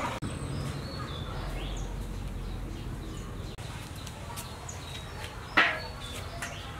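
Outdoor ambience: birds chirping faintly over a low steady rumble, with one short, sharp, loud sound about five and a half seconds in.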